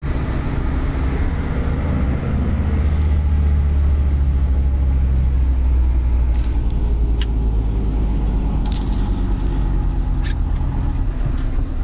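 Sisu truck's diesel engine running steadily, heard from inside the cab as a loud low drone, with a few short sharp clicks about halfway through and again near the end.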